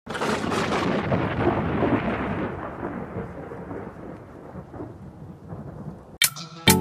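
Thunder sound effect for an animated lightning logo: a loud crackling thunderclap that rolls and slowly fades over about six seconds. Music breaks in near the end with a couple of sharp notes.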